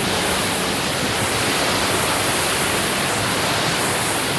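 Steady rush of water from a waterfall, an even noise with no breaks.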